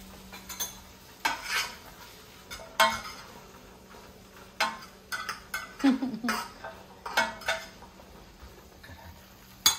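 A utensil stirring chickpeas, onions and peppers in a rectangular Copper Chef pot, making irregular scrapes and knocks against the pot about once a second.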